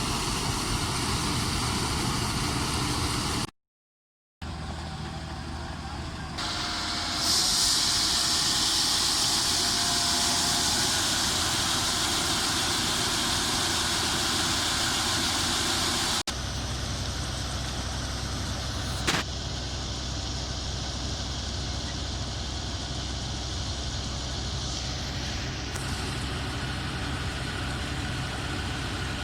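Combine harvesters running steadily through a series of cuts. The engine and machine noise drops out for under a second near the start. A louder high hiss sits over it from about seven to sixteen seconds.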